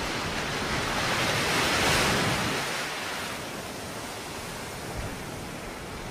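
A rushing noise like surf, swelling to its loudest about two seconds in and then easing off.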